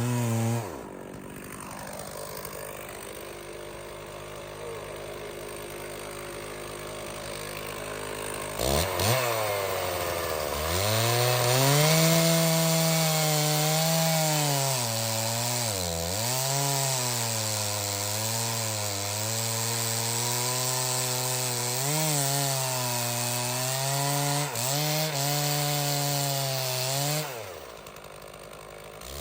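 Stihl 066 two-stroke chainsaw dropping from full throttle to idle and idling for several seconds. About a third of the way in it revs up and cuts through a red oak log for most of the rest, its pitch dipping again and again as the chain bites into the wood. Near the end it drops back to idle, then revs once more.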